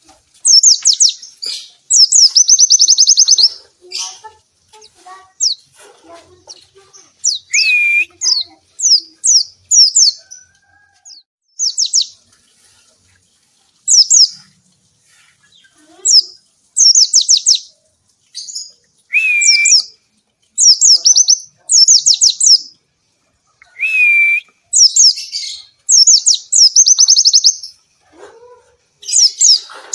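White-eye (pleci, Zosterops) in full song: repeated fast bursts of very high, rapid chirps and trills, each about a second long with short pauses between. A lower clear whistle comes three times.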